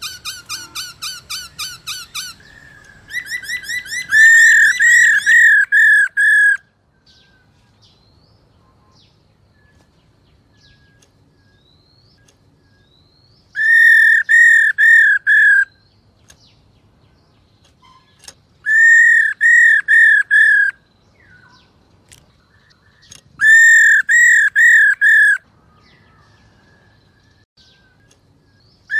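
Black-throated laughingthrush calling. It opens with a quick run of softer repeated notes, then gives loud bursts of four to six arched notes, each burst about two seconds long, with pauses of several seconds between them.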